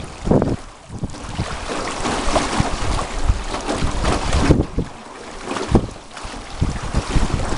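Wind buffeting the microphone in gusts over water splashing and lapping around a rowed boat on a river.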